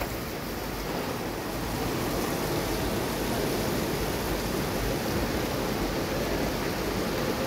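Cardboard recycling and board-making machinery running, giving a steady rushing noise like flowing water.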